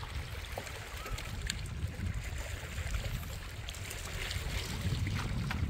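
Wind rumbling on the microphone over water lapping at the rocky shore, with a few faint clicks.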